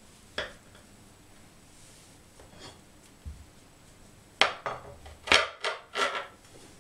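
Kitchen knife cutting through a layered honey cake, its blade knocking and scraping on the glass cutting board beneath: one sharp click about half a second in, then a quick run of five or six rasping scrapes in the second half.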